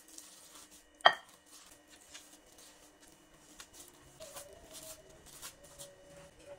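A hand in a plastic bag kneading steamed cassava mash with sugar in a glass bowl: plastic crinkling, soft squishing and small irregular clicks. A single sharp knock on the glass bowl about a second in rings briefly and is the loudest sound.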